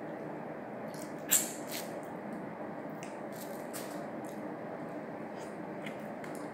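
Cooked prawns being shelled by hand and eaten: short sharp crackles of shell cracking and peeling, the loudest about a second in, with a few more scattered through, over a steady low hum.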